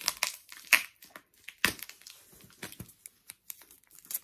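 Cardboard box being torn open by hand: a string of sharp, irregular tearing and crackling sounds, loudest just under a second in and again at about a second and a half.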